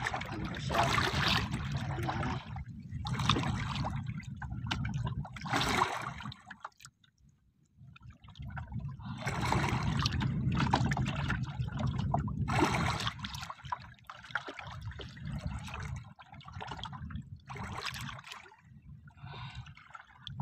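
Sea water sloshing and lapping against the hull of a small outrigger boat in irregular bursts, over a low rumble, with a brief lull about seven seconds in.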